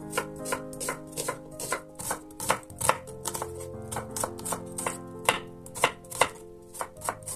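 Chef's knife slicing onion on a wooden cutting board: an uneven run of sharp knocks as the blade cuts through and strikes the board, about three a second.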